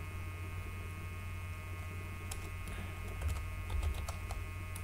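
Computer keyboard keys typed in a few scattered clicks over a steady electrical hum.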